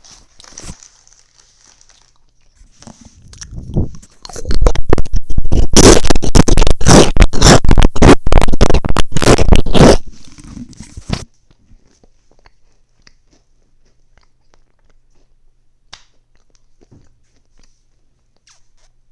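Very loud, close-up crunching and chewing of food right at the microphone. It runs as a dense stream of crunches for about five seconds, then stops abruptly, leaving only a few faint clicks.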